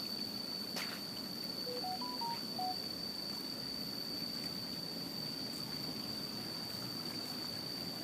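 Outdoor ambience dominated by a steady high-pitched insect drone. About two seconds in, a short run of five clear whistled notes, each at a different pitch, sounds briefly.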